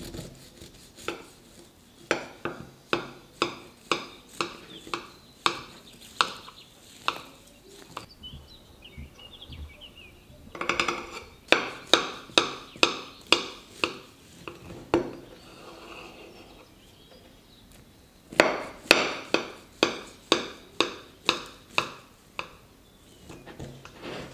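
Knife cutting a sugar-crusted sponge cake on a ceramic plate, the blade clicking sharply against the plate with each downward push. The clicks come in three quick runs of about one and a half a second, with short pauses between runs as the knife is moved to the next cut.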